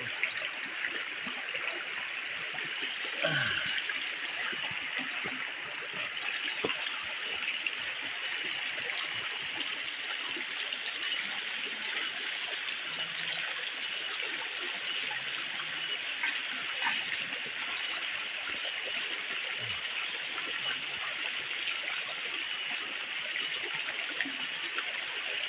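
A stream rushing steadily over rocks, with scattered faint clicks.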